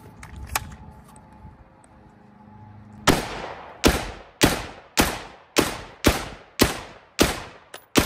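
A firearm fired in a quick, steady string of about ten shots, roughly two a second, starting about three seconds in, each shot trailing off in an echo.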